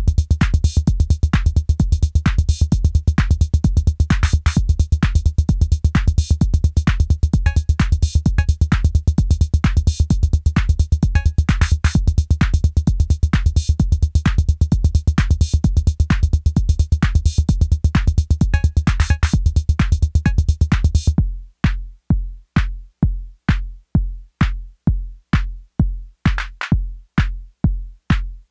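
Electronic beat played on an Arturia DrumBrute Impact analog drum machine, a steady busy pattern. About two-thirds of the way in it thins out to bare low drum hits about twice a second.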